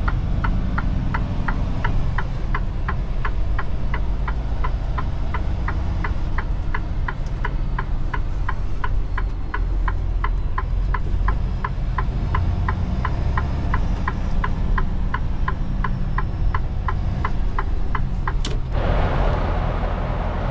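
Truck turn-signal flasher ticking about three times a second over the low, steady rumble of the diesel engine in the cab. The ticking stops near the end, and a loud hiss begins.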